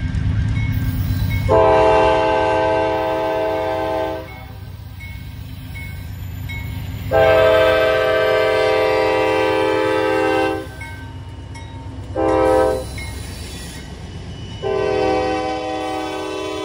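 Norfolk Southern freight locomotive's air horn sounding the grade-crossing signal: two long blasts, a short one, then a long one. Underneath runs the low rumble of the diesel locomotives passing.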